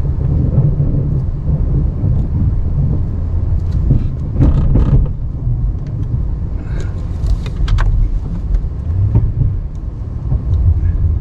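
Ram 1500 Classic pickup running steadily while plowing snow, a low engine rumble. A few short clicks and rattles come about four and again about seven seconds in.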